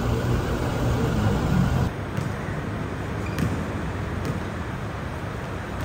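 A low steady rumble that cuts off suddenly about two seconds in, followed by a basketball bouncing on a hard court floor: a few sharp bounces about a second apart.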